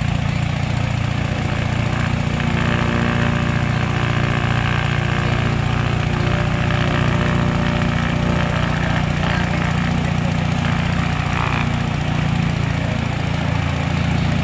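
Piston aero engines of replica First World War aircraft, an SE5a and an Eastchurch Kitten, running on the ground with propellers turning. In a run-up, the engine note grows fuller about two seconds in and eases back again near twelve seconds.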